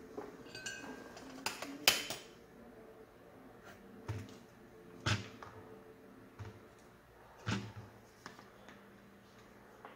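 Small hand tools being picked up, moved and set down on a workbench: a few scattered clicks and light knocks, the sharpest about two seconds in and others around four, five and seven and a half seconds in.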